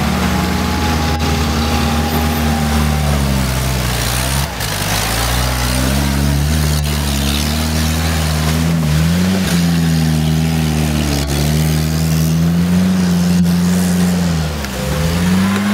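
UAZ-452 'Bukhanka' van's engine revving under heavy load as it pulls through deep mud ruts, its pitch rising and falling with the throttle. The engine note drops briefly about four seconds in and again near the end before climbing back.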